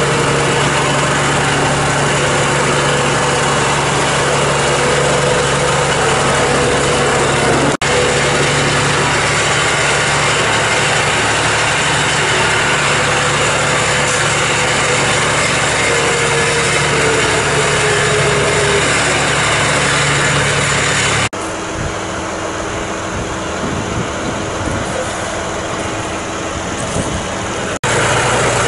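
John Deere loader tractor's engine running steadily, heard from the driver's seat. The sound breaks off abruptly a few times, and is quieter for the last several seconds.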